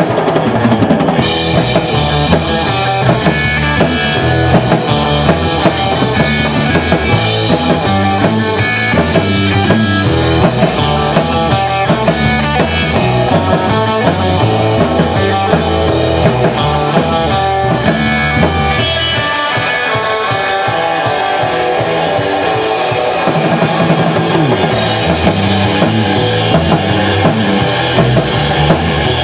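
Live rock band playing an instrumental cover, with drum kit and guitar. A lighter passage with less bass comes a little past the middle.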